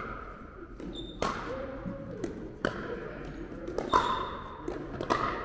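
Pickleball paddles striking a hard plastic pickleball in a rally: four sharp pops about a second and a quarter apart, with lighter taps between them.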